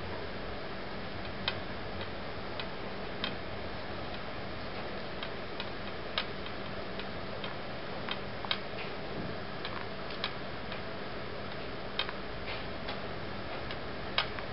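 Sharp, short clicks at irregular spacing, roughly one a second, over a steady hiss.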